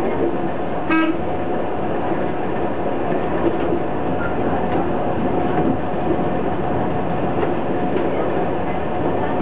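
Uerdingen railbus (Y-tog) running along the line, heard from inside the driver's cab: steady engine and wheel-on-rail running noise. A brief tone sounds about a second in.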